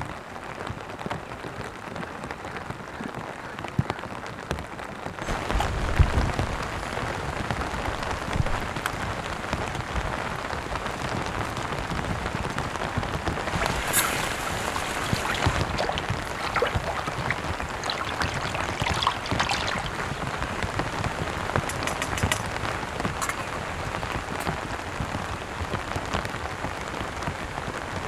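Steady rain falling and pattering on surfaces, growing louder about five seconds in, with a few dull thumps just after.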